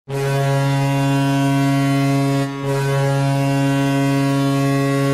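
Ice hockey goal horn sounding one long, loud, low steady blast, with a brief break about two and a half seconds in; the horn signals a goal scored.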